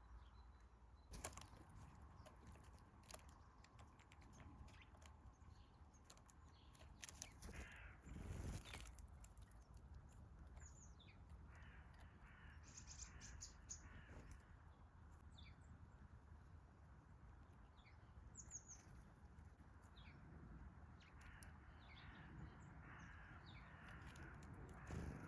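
Forest birds calling faintly: harsh, rasping screeches typical of a Eurasian jay come several times, mixed with short high chirps of small songbirds. A few soft knocks and rustles, the loudest about a third of the way in.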